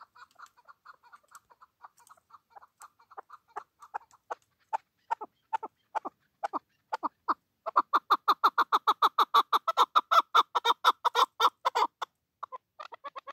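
Chukar partridge calling: a long series of short notes that come slower and grow louder, then break into a fast, loud chatter of about eight notes a second for some four seconds. The chatter stops abruptly about twelve seconds in, and a few single notes follow.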